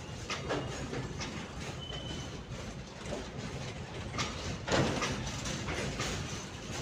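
Freight train's container wagons rolling past: a steady rumble of wheels on the rails with irregular clatter and knocks, loudest a little before five seconds in.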